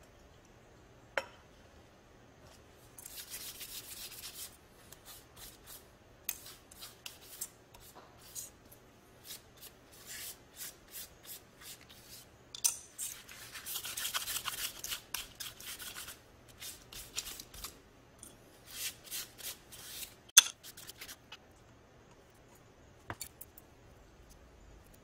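Gloved hands handling and working thin sheet liner pieces on a workbench: short stretches of rasping, rustling noise mixed with sharp clicks and taps, the loudest click about two-thirds of the way through.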